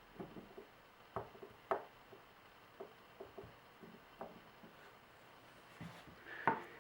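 Faint, scattered clicks and taps of close-up hand work on a small plastic repair with Q-Bond glue and filler powder, with a louder knock near the end.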